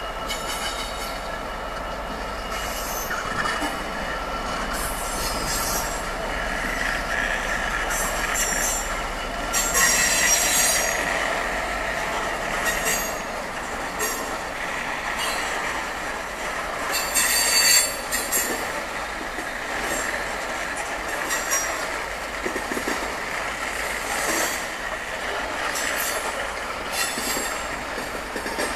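A train rolling past with its wheels squealing and screeching against the rails, the squeal flaring louder about ten and seventeen seconds in.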